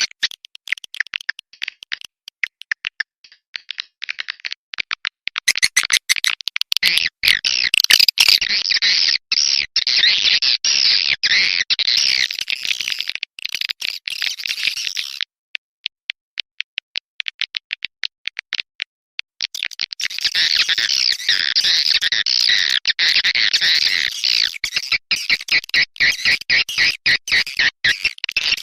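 Recorded swiftlet calls of the kind played to lure swiftlets into a nesting house: a rapid, high twittering chatter in dense runs, thinning to sparse quick ticks for a few seconds at the start and again from about 15 to 19 seconds in.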